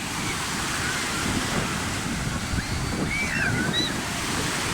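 Sea surf washing steadily, with wind buffeting the microphone. A few faint high-pitched wavering calls come through about three seconds in.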